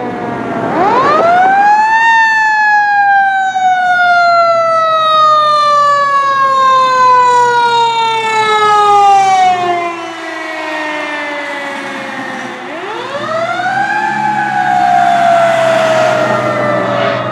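Pierce fire engine's siren winding up twice. Each time it climbs quickly to its top pitch and then slides slowly down over many seconds, with the truck's engine running steadily underneath.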